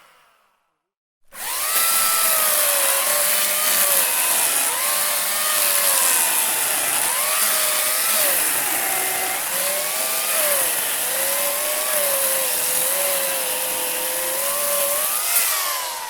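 Electric hand saw cutting wood: the motor starts about a second in and runs steadily, its pitch dipping and recovering again and again as the blade bites. Near the end it winds down with a falling whine. At the very start the end of an earlier run is fading out.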